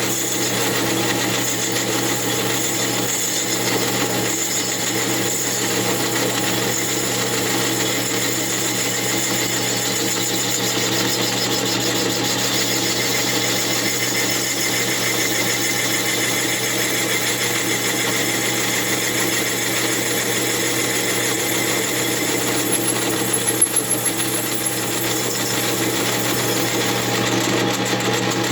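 Metal lathe running steadily while taking another cut off the base of an Echo CS8000 chainsaw cylinder held on a mandrel. A few sharp knocks about 23 seconds in.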